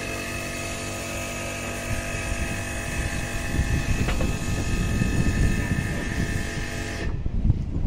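A machine running steadily at one unchanging pitch, with wind buffeting the microphone. The machine sound cuts off suddenly near the end, leaving only the wind rumble.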